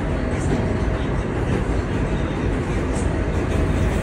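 New York City subway J train running, a steady rumble of wheels on the track heard from inside the car.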